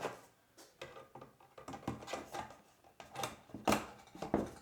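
A run of irregular clicks and knocks, sparse at first and busier and louder from about halfway through.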